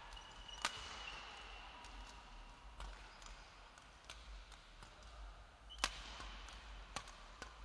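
Badminton rackets striking a shuttlecock in a doubles rally: sharp hits at irregular intervals, the loudest just after the start and near the end, with brief squeaks of shoes on the court floor.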